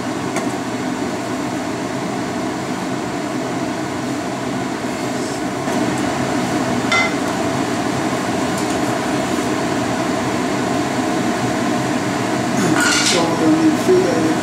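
Steady rushing kitchen noise with a few sharp metal clinks of cookware and utensils: one about halfway, and a quick cluster near the end.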